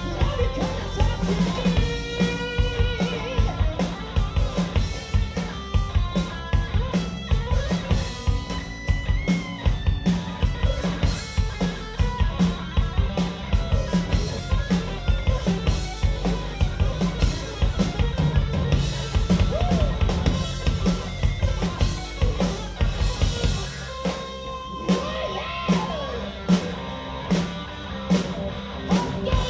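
Live rock band playing an instrumental break: electric guitar lead with bending notes over a driving drum kit and bass, no vocals. For the last few seconds the bottom end drops away while the drums keep going.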